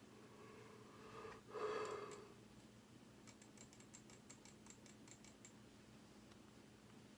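A sleeping person's single short voiced breath, like a soft moan, about a second and a half in. It is followed by a run of faint quick clicks, about four a second, over a steady low hum.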